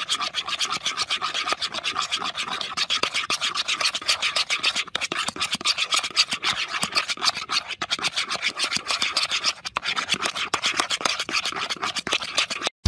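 A mixing utensil scraping quickly and rhythmically around a bowl as body wash and hand gel are stirred into a thick slime mix. The stirring cuts off suddenly just before the end.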